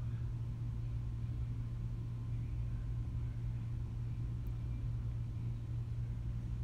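Steady low-pitched hum with rumble beneath it, holding an even level.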